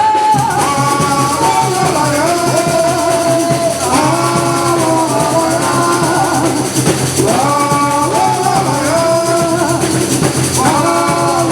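Voices singing a samba-enredo melody in long held phrases over continuous samba percussion with shakers and drums.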